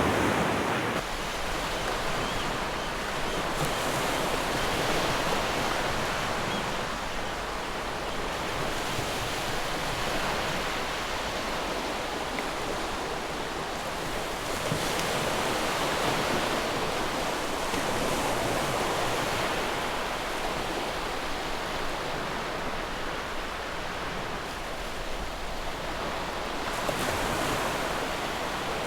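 Ocean surf: a steady rush of breaking waves that swells and eases slowly every few seconds.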